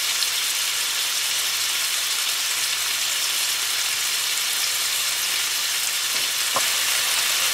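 Cubes of pork tenderloin sizzling steadily in hot canola oil in a frying pan as they sear.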